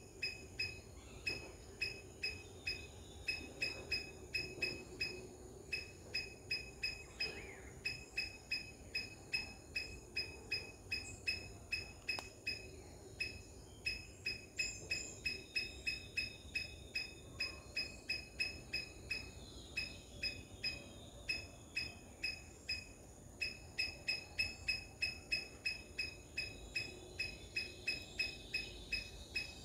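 A high, pitched chirp repeated steadily about twice a second, a call that keeps going with only short breaks.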